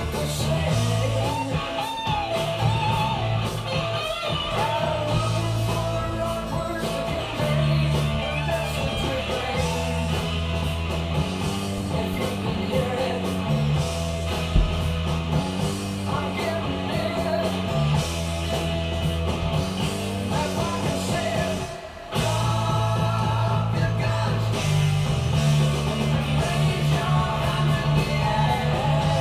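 Rock song with singing, guitar and bass, briefly dropping out about 22 seconds in before the music comes back.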